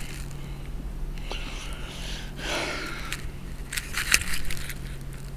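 Faint, steady low hum of a distant approaching freight train, with a few sharp clicks and a brief rustle of handling noise.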